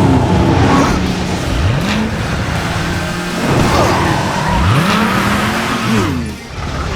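Race-car engine sound effect running with a steady drone, revving up in rising sweeps about two seconds in and again near five seconds, with some tyre squeal.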